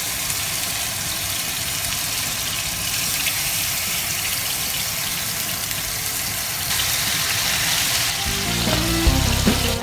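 Kangaroo steaks sizzling in hot oil in a nonstick frying pan as more pieces are laid in: a steady, even hiss. Music with pitched notes comes in near the end.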